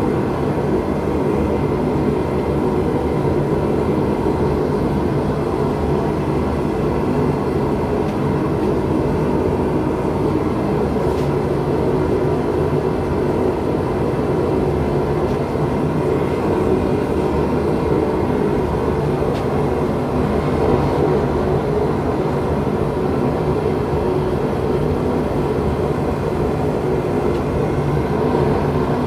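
Forge running with a steady rushing noise and a low hum.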